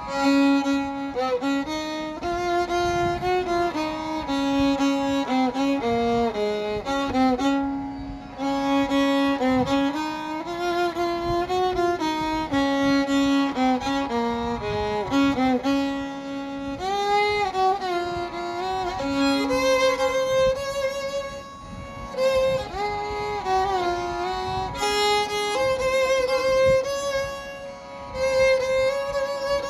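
Background music: a solo violin playing a melody, with slides between notes.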